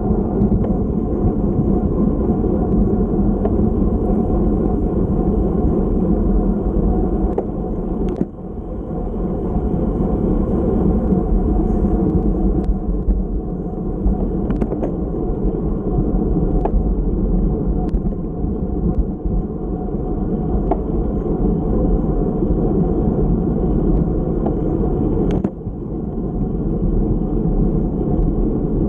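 Steady wind rush and road rumble from a racing road bicycle, picked up by a camera mounted on the bike. A few brief clicks sound throughout, and the noise drops briefly twice, about 8 seconds in and about 25 seconds in.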